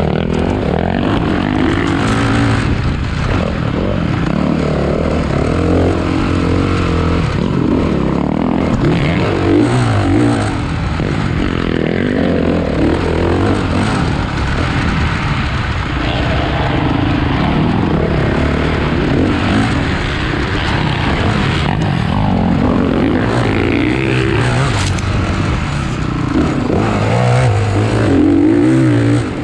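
Several motocross dirt bikes racing, their engines revving up and down as the riders accelerate and shift, the engine notes overlapping. Slightly louder near the end.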